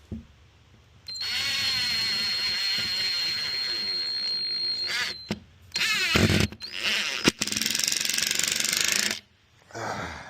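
Cordless power driver sinking wood screws into the gate. There is one run of about four seconds with a steady high motor whine, a short burst, then a second run of about two and a half seconds.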